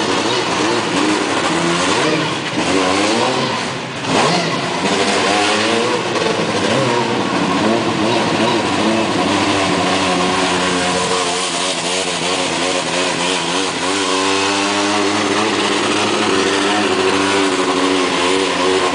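Formula Student race car's engine revving up and down as the car is driven, its pitch climbing and falling again and again with the throttle, with a sharp crack about four seconds in.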